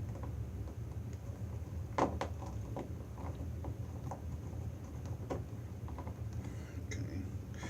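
Small clicks and taps of hands working a plastic BNC video connector, pushing a Cat5 wire into its screw terminal and tightening it, with a sharper click about two seconds in. A steady low hum runs underneath.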